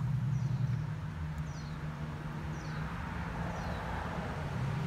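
Low steady hum of a small electric boat's drive cruising under way, with water and a rushing noise that swells about three seconds in as it passes under a bridge. A bird repeats a short, falling high chirp about once a second.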